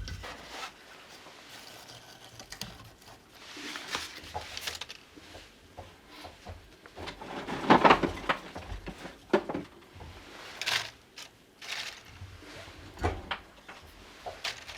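Irregular knocks, clicks and rustling, as of objects being handled and moved around, with a louder clatter about halfway through.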